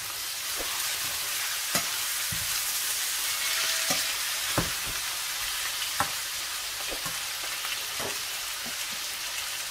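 Diced chicken and sliced onion sizzling in a stainless steel frying pan while being stirred with a slotted spatula. The spatula knocks and scrapes against the pan at irregular intervals, about once a second, over a steady sizzle.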